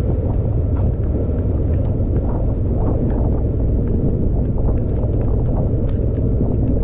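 Motorcycle riding slowly in the rain: a steady low rumble of engine and wind on the microphone, with scattered sharp ticks of raindrops striking.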